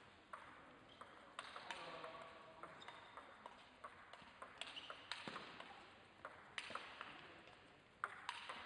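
Table tennis rally: the celluloid ball gives quiet, sharp clicks at an irregular pace as it strikes the bats and the table, with a short ring-out in a large hall.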